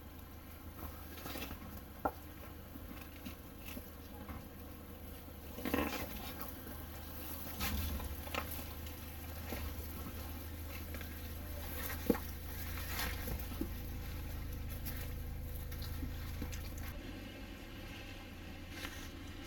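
Low engine rumble of an off-road vehicle creeping over rocks, with scattered knocks and crunches from the tyres on rock. The rumble grows stronger from about a third of the way in and eases off near the end.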